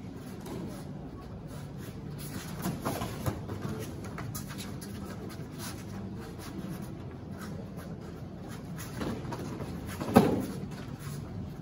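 Taekwondo sparring: a few light thuds from feet on the mats about three seconds in, then a louder single smack of a kick landing on a padded scoring body protector about ten seconds in, over a steady low hum.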